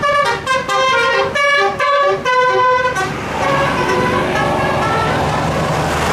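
Bus musical multi-tone horn (telolet/basuri type) playing a quick tune of short notes at changing pitches. About three seconds in it stops, leaving steady bus engine and traffic noise.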